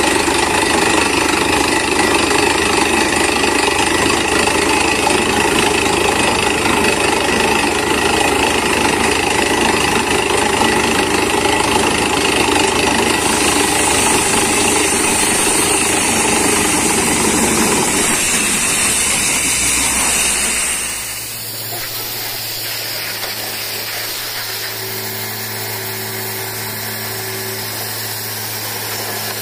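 Truck-mounted borewell drilling rig drilling, a loud, dense, steady mechanical noise. About two-thirds of the way through the drilling noise drops away, leaving the rig's engine running at a lower, steady hum.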